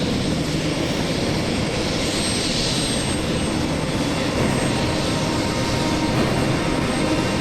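Aircraft engine running loud and steady, a dense rushing noise with a thin high whine on top.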